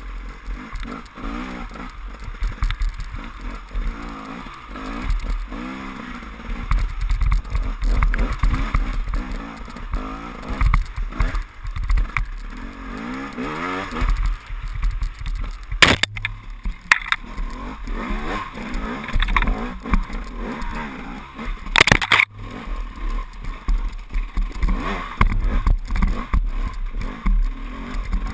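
KTM enduro motorcycle engine heard from on the bike, revving up and down as the rider works the throttle over rough, muddy forest track, with wind rumbling on the microphone. A few sharp knocks come in the second half.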